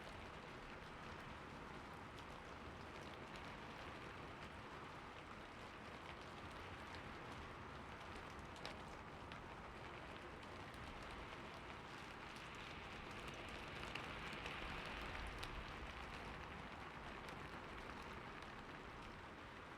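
Steady rain falling, a soft even hiss with scattered individual drop ticks, swelling a little about two-thirds of the way through.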